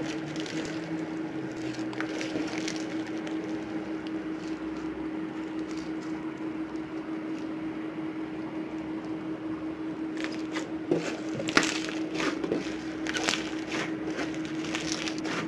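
Crunchy slime full of polystyrene foam beads being squeezed, stretched and pulled by hand, giving squishing and crackling; the crackles and pops grow dense about two-thirds of the way in. A steady hum runs underneath.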